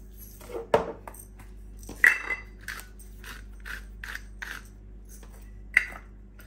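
Hand-twisted salt and pepper grinder grinding: a run of short rasping strokes, about three a second, with a few sharper clicks among them.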